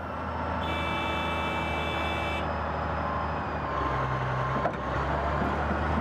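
Caterpillar D10T bulldozer's C27 V12 diesel engine running steadily with a deep hum. A high whine sounds over it for about two seconds, starting just under a second in.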